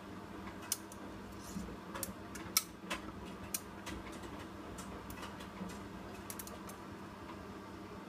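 Hoover WDYN 11746 PG8 washer-dryer tumbling shirts and sweaters on its low-temperature mixed-fabrics drying cycle: a steady low hum with about a dozen irregular sharp clicks as shirt buttons knock against the drum.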